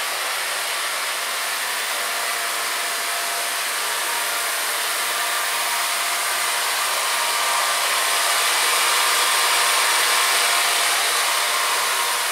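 A Perfect Score automatic bread scoring machine running, with its motors driving the plastic conveyor belt and the belt-driven rotary scoring blades. It makes a steady, noisy whir that grows slightly louder after the middle.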